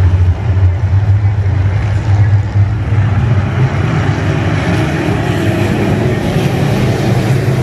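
A pack of IMCA Modified dirt-track race cars with V8 engines running together on the track: a loud, continuous engine rumble that grows louder and rougher from about halfway as the field comes closer.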